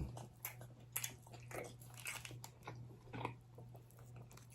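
Close-up mouth sounds of eating: irregular biting and chewing with small crunches and wet clicks, over a faint steady low hum.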